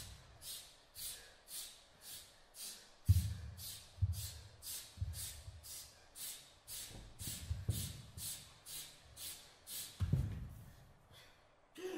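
Sharp rhythmic breaths, hissing out about twice a second, stopping near the end. Heavy thuds of bodies dropping onto the dance floor come in between, the loudest a little after three seconds in.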